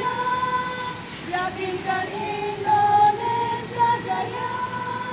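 Women's choir singing a march song, with long held notes.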